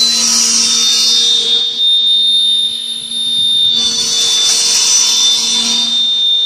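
Toothpick-making machine running, its rotor of steel cutter discs spinning with a steady high whine and a low motor hum. A loud hissing grind comes and goes with the bamboo being processed, easing for a couple of seconds in the middle.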